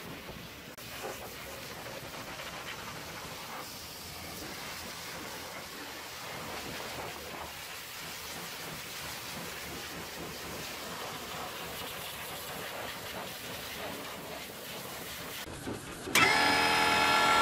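Steady hiss of a hot-water pressure washer spraying a truck's engine bay and wheel. About a second before the end, loud music starts suddenly.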